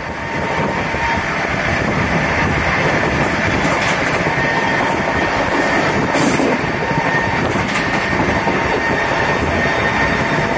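Rajdhani Express train with Tejas coaches running at speed. A dense, steady rail rumble grows louder in the first second, with a faint steady whine and a few light clicks over it.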